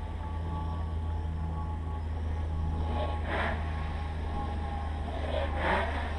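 Armattan CNC 355 quadcopter's motors and propellers running steadily, with two rushing surges, about halfway through and near the end.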